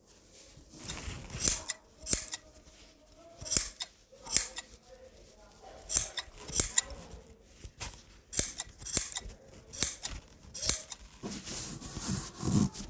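Tailor's scissors snipping cloth in a series of separate cuts, about one a second, some in quick pairs, with fabric handling between them.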